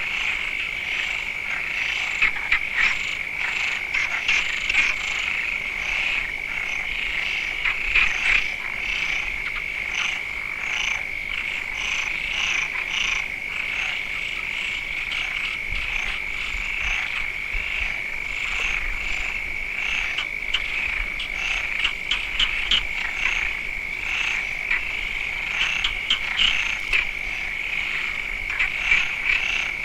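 A chorus of many frogs calling at once: a dense, unbroken wall of overlapping calls, with individual short calls standing out all the way through.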